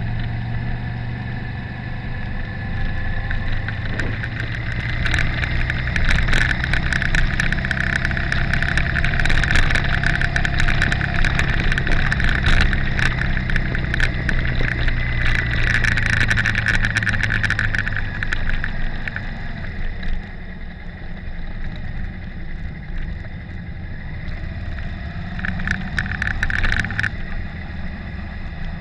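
Motorcycle engine running at a steady road speed, with a rising engine note near the end. Repeated rattling knocks come through in stretches, and the sound shifts abruptly partway through.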